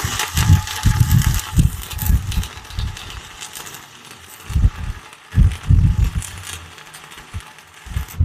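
Stick-welding arc crackling and sizzling steadily as a 6013 electrode runs a bead on solid steel bar, with the welding machine at its maximum amperage. Irregular low thumps sound underneath, and the arc cuts off suddenly at the very end.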